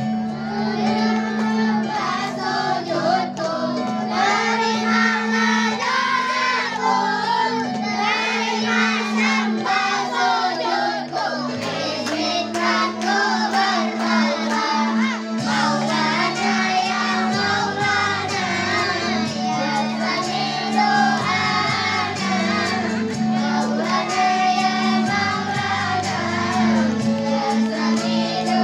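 Three girls singing together into microphones, their voices amplified, over backing music with a steady held low note.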